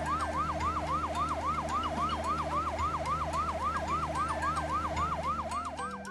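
Cartoon fire truck siren wailing in a fast, even warble, about four to five sweeps a second, over a low steady hum; it stops near the end.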